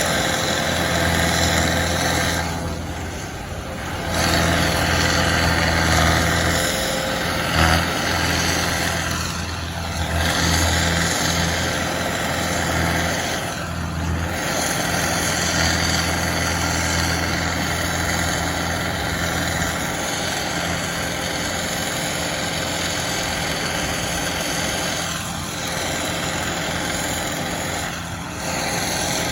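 Engine of heavy site equipment running steadily with a low hum, dipping briefly a few times, with one short knock near the middle.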